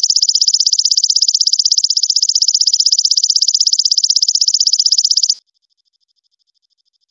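Belalang emas, an orange katydid, calling in a loud, high, rapidly pulsing trill. It cuts off suddenly about five seconds in, and only a much fainter trill goes on.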